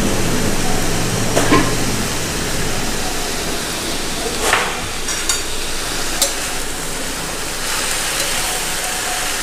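Chopped amaranth leaves (thotakura) sizzling in hot oil in a pan as they release their water, with a steady hiss. A few sharp knocks of the stirring utensil against the pan break in through it.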